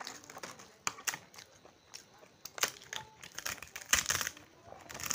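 Crisp fried flatbread being broken and crushed by hand onto a plate of rice: a run of irregular crackles and snaps, the loudest a few seconds in.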